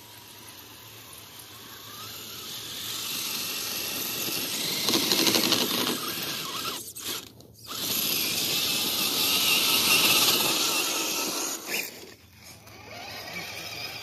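Axial SCX10-series 1/10-scale RC rock crawler driving over loose rocky dirt: its electric motor and gear train whine over the crunch of tyres on gravel. It grows louder from about two seconds in, dips briefly about seven seconds in, and falls away near the end.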